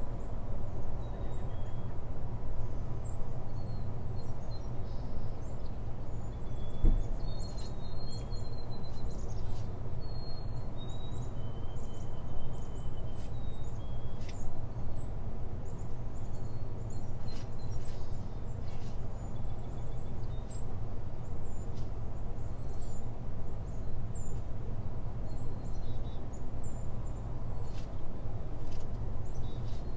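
Steady low background noise, with faint, short bird chirps scattered through it.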